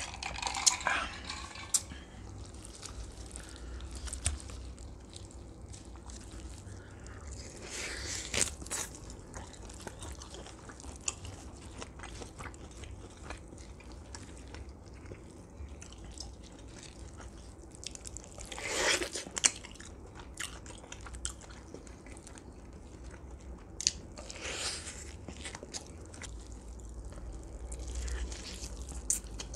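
Close-miked eating sounds: biting and chewing roasted duck, with scattered wet clicks and smacks. A few louder crunchy bursts come about a quarter of the way in, past the middle and near three-quarters. Gulps of a drink come at the very start.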